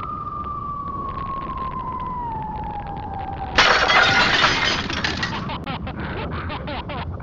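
Cartoon-style sound effect: a long whistle falling in pitch, then, about three and a half seconds in, a sudden loud crash of shattering glass with clattering debris that thins out into scattered clicks.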